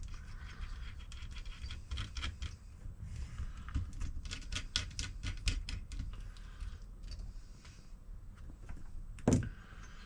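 Small clicks, taps and scraping as laptop internals are handled and worked loose by hand. There is a quick run of clicks about four to five and a half seconds in and one sharper click near the end.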